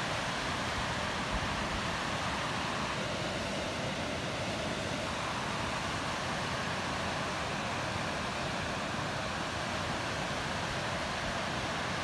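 Steady rush of fast-flowing water over a river rock cascade, an even hiss without breaks.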